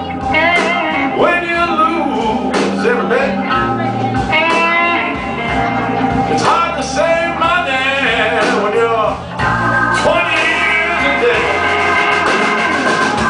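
Live blues band playing, a lead line of bending notes over low bass notes and regular drum hits.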